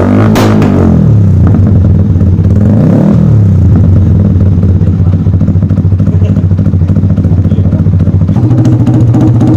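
Small single-cylinder motorcycle engine with an aftermarket racing exhaust, blipped twice in quick revs that rise and fall, then settling into a fast, even idle; the idle note steps slightly higher near the end.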